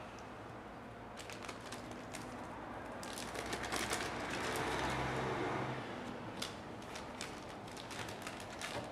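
Metallised static-shielding bag crinkling as it is picked up and handled, loudest a few seconds in, with scattered light clicks and ticks before and after.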